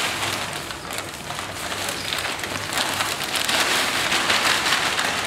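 Potting soil pouring from a plastic bag into a large terracotta pot: a steady pattering rustle of falling soil and crinkling bag, heavier after about two and a half seconds.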